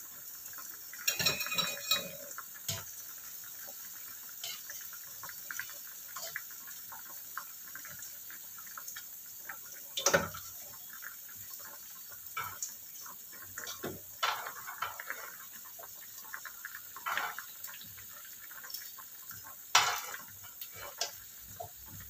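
Saucepan of water simmering on a gas stove with a steady hiss, under scattered clinks and scrapes of a metal utensil against a wok. A cluster of clatters comes about a second in, with sharper single knocks about halfway and near the end.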